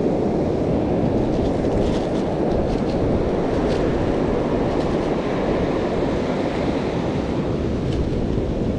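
Ocean surf washing up a sandy beach, with wind buffeting the microphone: a steady low rush.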